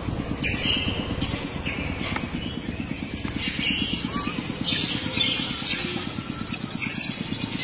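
A small engine running steadily with a fast, even pulse, with several short, higher-pitched sounds over it.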